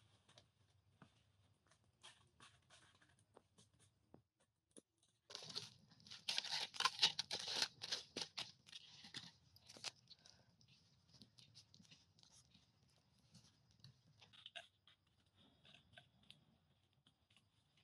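Dry twigs and kindling crackling and snapping while a small campfire is being lit and fed with sticks: a dense run of crackles lasting about four seconds in the middle, with scattered faint clicks before and after.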